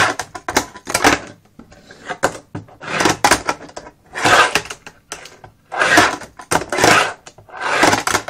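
Fingerboard rolling and clacking on a metal double quarter-pipe ramp: short scraping, rattling passes of the small wheels and trucks on the ramp, a few quick ones at the start, then about once a second after a short lull.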